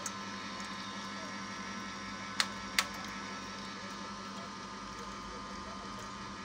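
Small electric screw oil press running steadily while pressing flaxseed, a constant mechanical hum. Two sharp clicks about half a second apart come near the middle.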